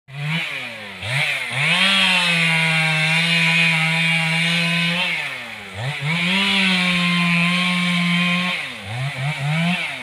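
Two-stroke chainsaw revved up and held at full throttle for about three seconds, twice, with the revs dropping briefly in between, then a few quick throttle blips near the end.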